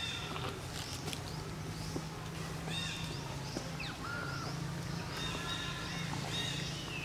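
Short high-pitched animal calls, several falling in pitch, repeated every second or so, over a steady low hum.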